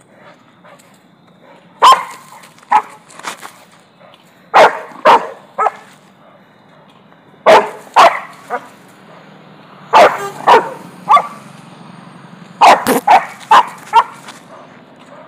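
Rottweiler barking repeatedly while straining on its leash: loud, sharp barks in quick twos and threes with short pauses between, starting about two seconds in.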